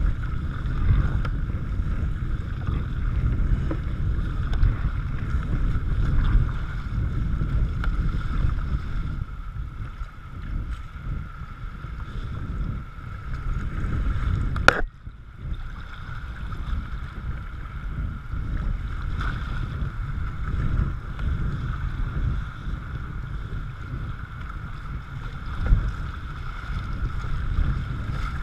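Wind buffeting the microphone over the steady rush and splash of river water against a moving kayak's bow. About halfway through a sharp click, after which the sound dips for a moment.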